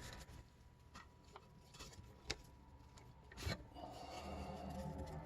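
Hockey trading cards being handled: faint rubbing with a few light clicks and taps as cards are moved and sorted. A faint low hum comes in about two-thirds of the way through.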